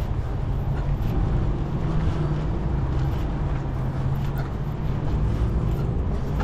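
Steady low mechanical hum with a continuous low rumble beneath it.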